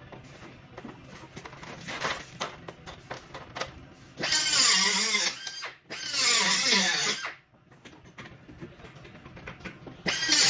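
Light clicks and knocks, then a power tool running in two loud bursts of about a second and a half each, around four and six seconds in, its whine wavering in pitch; it starts up again near the end.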